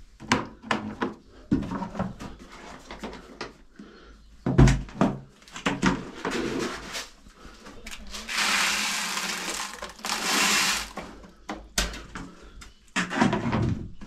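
Knocks, clatters and rustling of hands-on work in a chicken coop, with a loud thump about four and a half seconds in. About eight seconds in comes a steady rushing noise lasting some three seconds, broken once briefly.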